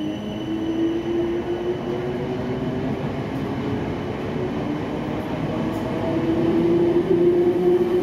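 Class 455 electric multiple unit moving out along the platform: a steady rumble of wheels on the rails under a traction-motor hum that rises slightly in pitch as it gathers speed.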